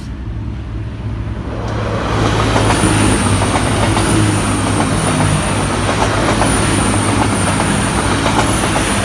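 A large vehicle rumbling and rushing with a steady low hum and a thin high whine, swelling about a second and a half in and then staying loud.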